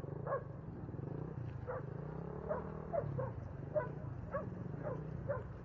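A dog barking over and over, about ten short barks each falling in pitch, over a steady low hum.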